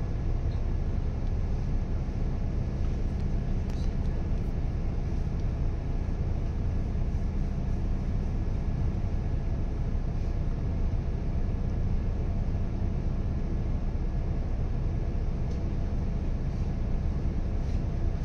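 City bus idling while stopped in traffic, a steady low rumble heard from the front of the passenger cabin.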